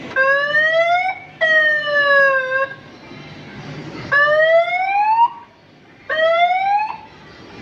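Fire-engine siren sounding in four separate sweeps of about a second each, three rising in pitch and one falling, with short pauses between them.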